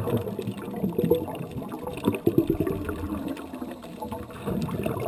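Muffled water sound as heard underwater: an irregular low rumbling and bubbling, with a louder cluster of bubbling knocks about two seconds in.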